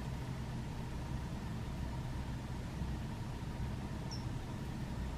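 A steady low hum with a faint hiss, unchanging throughout.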